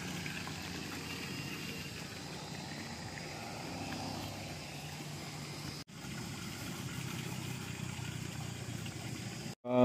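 A vehicle engine idling steadily, a low hum over a background of noise, with a brief break about six seconds in.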